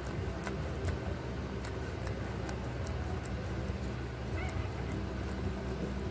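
Mother Shih Tzu licking her newborn puppy: a run of soft, wet clicking sounds, with one brief high whimper about four and a half seconds in. A steady low hum sits underneath.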